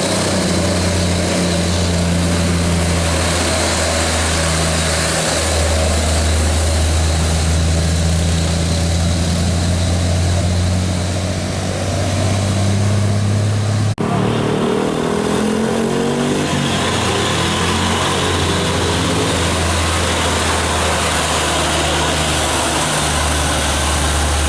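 Heavy diesel trucks' engines running as they pass, with a deep, steady hum. After a sudden cut about halfway through, another truck's engine note climbs in steps as it pulls away.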